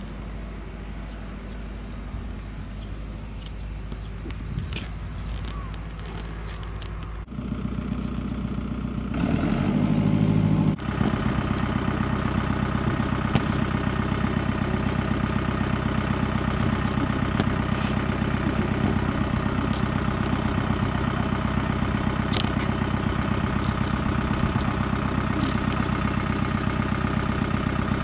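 Farm tractor engine running steadily. The sound changes suddenly about seven seconds in and is louder for a couple of seconds around ten seconds in. From then on it runs evenly with a steady pulse.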